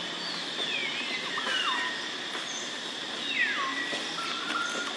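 Animal calls: high whistled notes sliding down in pitch, a cluster in the first two seconds and another about three seconds in, then a short held note near the end. A steady high drone runs behind them.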